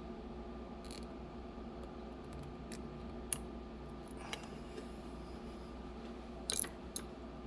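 Small, sharp metallic clicks of a lock pick working the pins and sliders inside a CX-5 high-security lock cylinder: a few scattered ticks, with a short cluster of them near the end. A steady background hum runs underneath.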